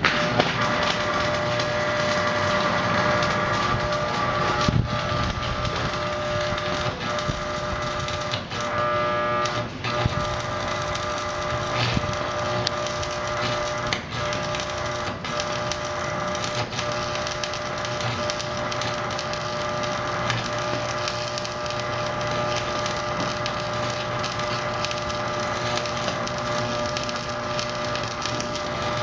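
Stick arc welding: the electrode arc crackling and spitting steadily as a bolt is welded onto a steel gate, with a steady hum of several tones underneath.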